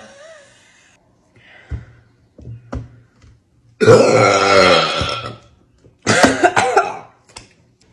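A woman burping loudly after drinking fizzy Sprite: a long burp of about a second and a half that falls in pitch, then a second, shorter burp, with a few faint clicks before them.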